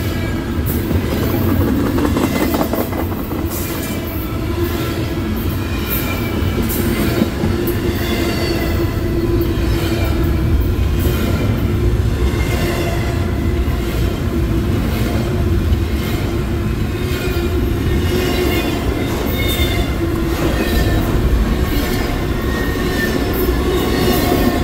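Union Pacific freight train rolling past, a steady loud rumble of cars with clacking wheels and many short, wavering squeals from the wheels on the rails.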